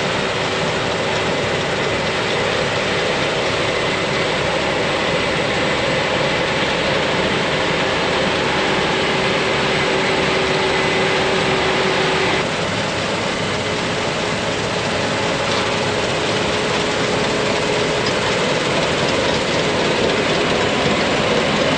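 Heavy harvest machinery running steadily, a dense mechanical drone with a few steady hums in it; the pitch of the hums changes abruptly about twelve seconds in.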